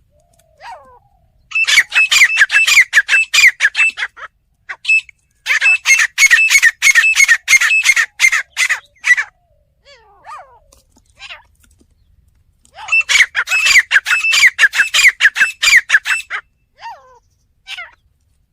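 Grey francolin (teetar) calling in three loud bouts of rapid repeated notes, each lasting a few seconds, with softer single calls in between.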